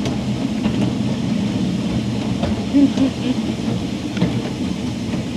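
Narrow-gauge railway carriage running along the line, heard from on board: a steady rumble of wheels on track, with a few faint clicks.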